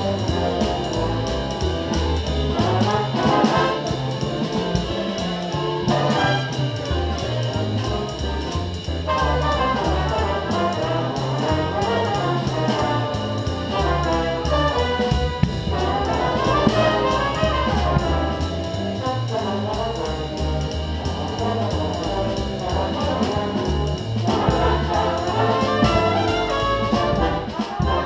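Jazz big band playing a swing chart: the brass section, trumpets and trombones, over a stepping bass line and a drum kit with steady cymbal strokes, the drums close and prominent.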